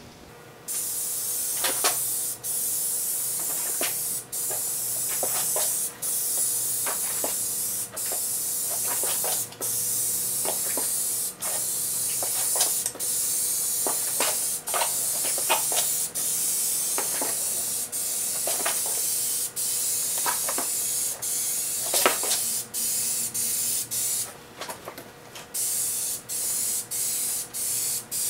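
Duplicolor aerosol can spraying clear coat: a steady hiss in long passes, cut off briefly between passes. Near the end it comes as a run of short, quick spurts.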